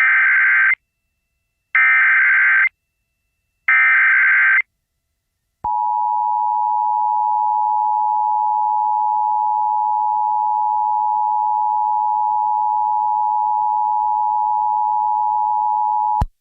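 Emergency Alert System broadcast: three short harsh bursts of SAME header data about two seconds apart, then the EAS two-tone attention signal, a steady two-pitch tone held for about ten seconds that cuts off abruptly. It heralds a tornado warning.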